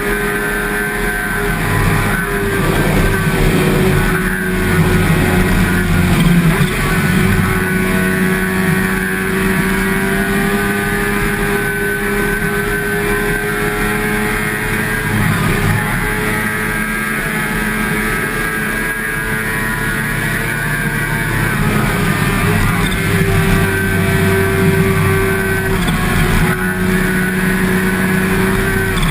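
Sport motorcycle engine running at a steady cruising pitch while riding, with small dips and rises in engine speed, over a constant hiss of wind and road noise.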